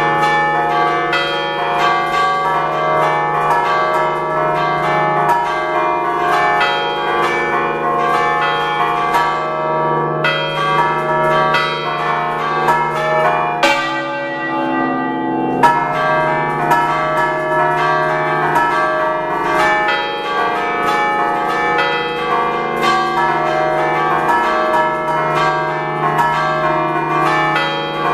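Six church bells tuned in D, cast by Picasso foundry, rung in the Ligurian 'ducale' style: their clappers are worked by hand to strike fast, melodic patterns that overlap into a continuous ringing. Near the middle the strikes stop for about two seconds and the bells ring on, then the playing resumes.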